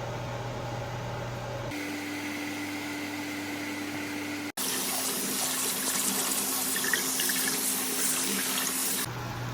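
Tap water running into a sink, a loud steady rush that starts abruptly about halfway through and stops shortly before the end. Before it, a steady low hum.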